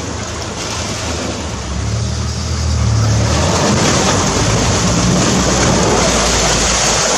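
Open safari vehicle's engine running as it drives into a flooded channel. From about three and a half seconds in, a louder rush of water splashing from the wheels takes over.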